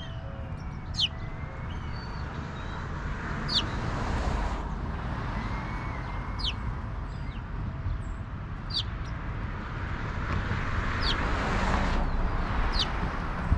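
A songbird repeating one short, high note that slides steeply down, six times at intervals of about two to three seconds, with fainter chirps from other birds. Underneath runs a steady low rumble that swells twice, like passing traffic.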